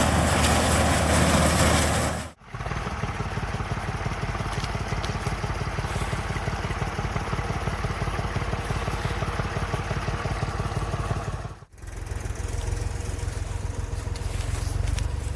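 Farm tractor diesel engine running steadily under load, heard in three shots that cut abruptly about two and a half seconds in and again near twelve seconds; the first shot is the loudest.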